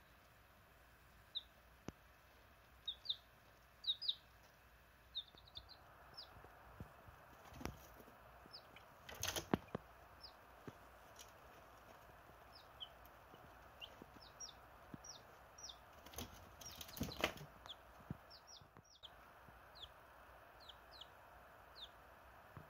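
Chicken chicks peeping: many short, high cheeps that drop in pitch, scattered throughout. Two louder flurries of wing flapping come about nine and seventeen seconds in.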